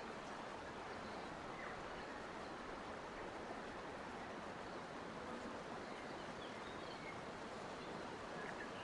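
Forest ambience: a steady, faint rushing noise with a few short, faint bird chirps scattered through it.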